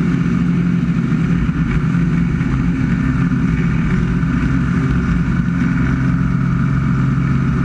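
Light aerobatic plane's piston engine and propeller droning steadily with wind rush, heard from inside the cockpit during a manoeuvre; the pitch holds level throughout.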